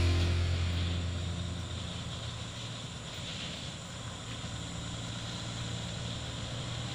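Heavy diesel truck engine running, a low steady hum that fades over the first couple of seconds and then holds at a constant level.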